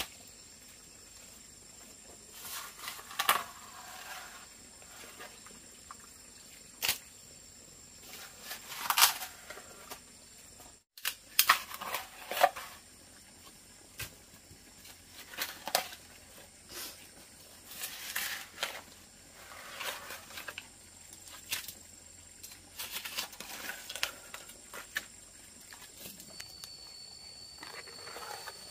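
A digging tool striking and scraping wet earth in irregular strokes, a second or two apart. A steady high whine begins near the end.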